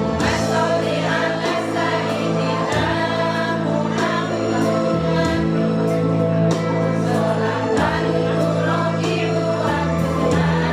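A choir singing a song together over instrumental backing with sustained bass and chord notes and a rhythmic beat.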